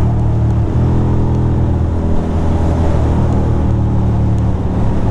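Ducati Monster 620's air-cooled L-twin engine running at highway speed, its steady note breaking and picking up again about half a second in and again about two seconds in.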